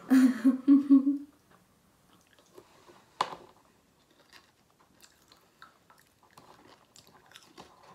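Crunchy Cheetos cheese puffs being bitten and chewed with the mouth: faint, scattered crunches with one sharper crunch about three seconds in. A short voiced sound comes from the chewer in the first second.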